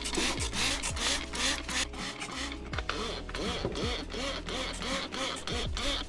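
Hand trigger spray bottle squirting water into a condensing boiler's coil heat exchanger, in quick repeated sprays a few times a second.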